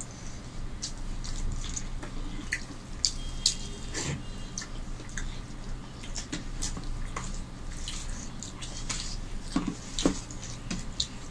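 Close, wet eating sounds of hands squeezing and mixing rice with curry on plates, with chewing and lip smacks: a scattered run of small sticky clicks and ticks over a faint steady low hum.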